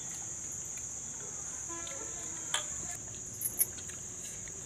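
Crickets chirping in a steady, continuous high-pitched trill, with a few short clicks about halfway through.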